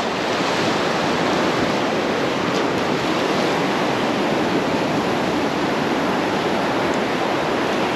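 Ocean surf washing through shallow water around pier pilings: a steady, even rushing.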